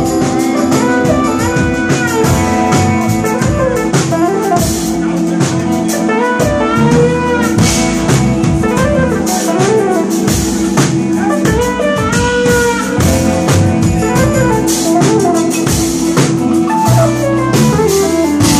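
Live jazz-fusion band playing: drum kit and electric bass under keyboard and saxophone, with a melodic line that slides up and down in pitch over a steady groove.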